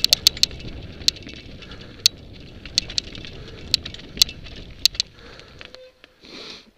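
Mountain bike rolling down a dirt forest trail: a steady low tyre rumble with many sharp clicks and clatters from the bike over the rough ground. The rumble drops away about six seconds in, followed by a short hiss.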